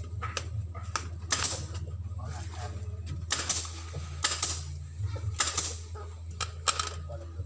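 A series of sharp clacks at uneven intervals, from tools at work on a spring bed mattress, over a steady low hum.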